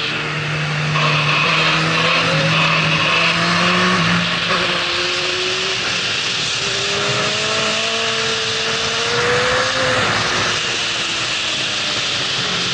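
Yamaha R6 inline-four with a Termignoni full exhaust running under load. Its note holds steady for the first few seconds, then climbs for several seconds before falling away near the end. Wind rushes over the microphone at road speed.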